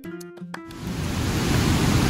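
A few plucked-string music notes stop abruptly about two-thirds of a second in. A steady rushing noise takes over and grows louder.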